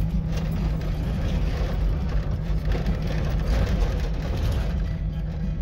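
Vehicle engine and road noise heard from inside the cabin while driving, a steady low drone.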